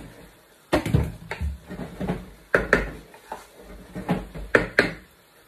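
Wooden spoon knocking and scraping against a non-stick frying pan as chicken is spread over rice: about ten irregular sharp knocks.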